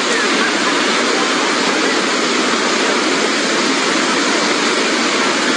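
Fast-flowing floodwater rushing steadily, a loud even noise with no breaks.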